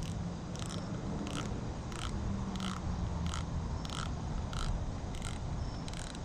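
Short raspy chirps repeating evenly, about three every two seconds, typical of a night-calling insect, over a low steady hum.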